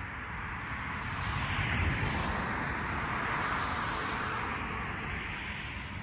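A vehicle passing by: a rushing noise with no clear pitch that swells to its loudest about two seconds in, then slowly fades.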